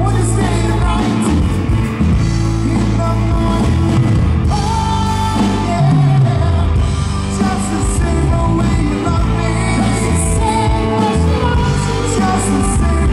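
Rock music: a band with electric guitars and drums playing, with a singer.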